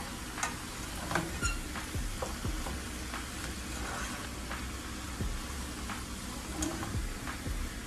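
Chopped cabbage, onion and bacon sizzling in oil in a frying pan while a plastic slotted spatula stirs and tosses it, with scattered soft clicks and scrapes of the spatula against the pan.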